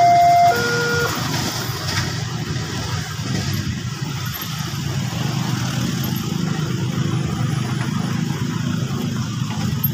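Railway level-crossing warning alarm, an electronic tone alternating between a high and a low note, cuts off about half a second in. A steady low rumble carries on after it.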